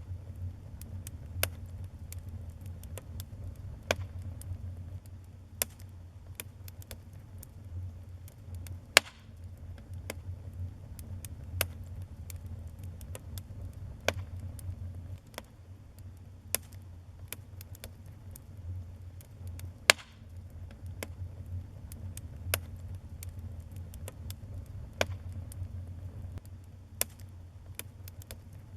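Wood fire in a fireplace crackling: irregular sharp pops and snaps, two of them much louder, over a low steady rumble of the flames.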